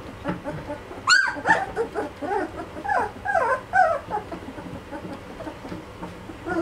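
A litter of two-and-a-half-week-old Belgian Malinois puppies whining and squeaking: many short, overlapping high cries that bend in pitch, busiest in the first few seconds and thinning out near the end.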